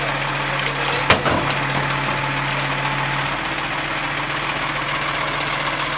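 Rear-loader garbage truck engine idling, its steady hum dropping lower about three seconds in. A few sharp clanks sound near the start, the loudest about a second in.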